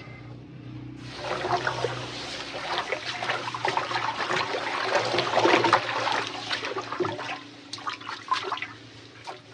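Water pouring and splashing, with many small clicks through it, starting suddenly about a second in and thinning out near the end.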